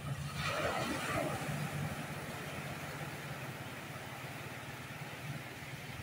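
Surf on a sandy beach: a wave breaks about half a second in and is loudest for the next second or so, then its wash runs on as a steady rush that slowly eases.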